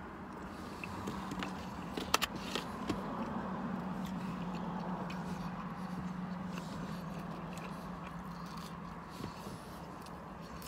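A person chewing a big mouthful of food, with a few sharp clicks about two seconds in, over a steady low hum inside a parked car.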